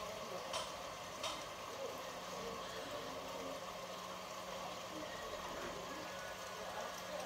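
Steady room noise with a faint low hum, and three light clicks in the first second and a half.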